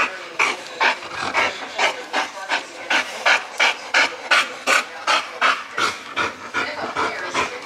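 An American bully dog panting hard and fast, about three breaths a second, winded and hot after running fetch.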